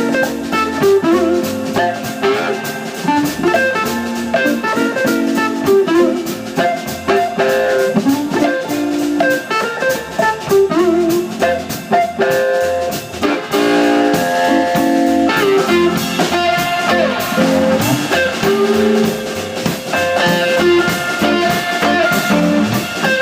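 Live blues band playing: electric guitar lines over a second electric guitar, upright bass and a drum kit.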